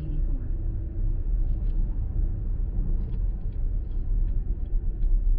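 Steady low road rumble and tyre noise inside a car driving at highway speed.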